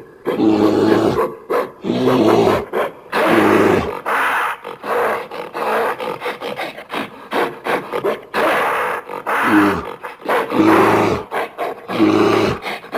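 Creature growls and roars made from gorilla and bear recordings, here voicing the extinct giant lemur Megaladapis. They come as a string of separate rough calls, one every second or two.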